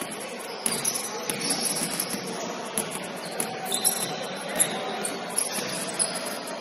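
Basketball warm-up on a hardwood gym floor: balls bouncing now and then, over short high-pitched squeaks.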